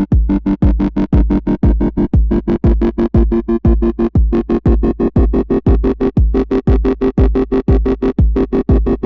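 Electronic dance music with a heavy, pulsing bass beat of about three to four hits a second under a steady synthesizer chord.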